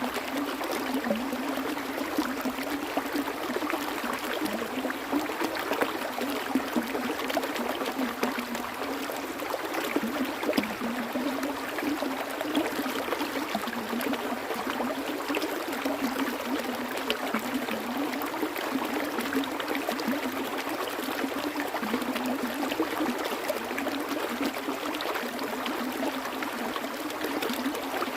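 Flowing water, like a stream, running steadily with an even rushing sound.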